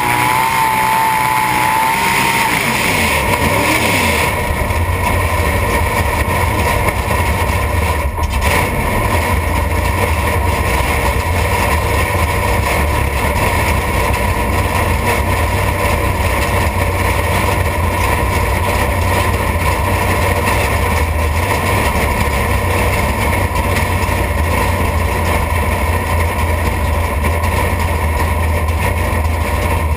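A 600-cubic-inch V8 race engine idling with a steady deep rumble, heard from inside the stripped cockpit. A wavering whine dies away in the first couple of seconds.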